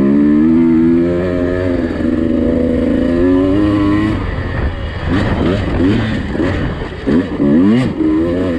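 Husqvarna TE150i two-stroke dirt bike engine running under way, holding a steady pitch for about four seconds, then easing off and rising and falling in quick throttle surges.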